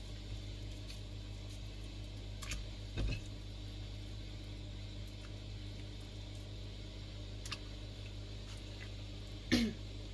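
A few soft plops and clicks as ingredients are dropped by hand into a pot of water, over a steady low hum. The loudest plop comes near the end.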